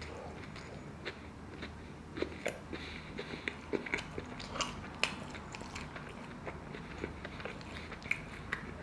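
A person biting into and chewing a Wendy's fried chicken sandwich, with a run of crisp crunches from the breading, densest between about two and five seconds in.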